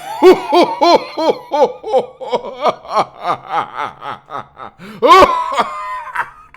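A man's maniacal villain laugh, voicing an evil Santa: a fast run of high 'ha-ha-ha' cackles, about four a second, then a loud, high, held burst of laughter about five seconds in.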